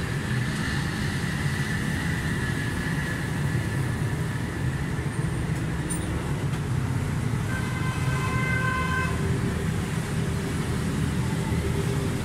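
Steady low rumble of motor vehicle traffic. About eight seconds in, a higher tone sounds for roughly a second and a half.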